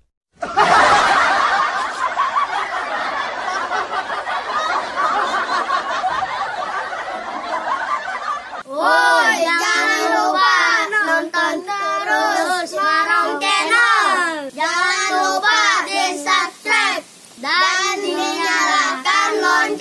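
A group of children's voices, many at once for the first eight seconds or so, then the children singing together in unison from about nine seconds in.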